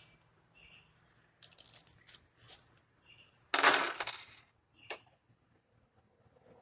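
Small metal mounting-bracket hardware clinking and clicking as it is handled, with one louder rattle about halfway through.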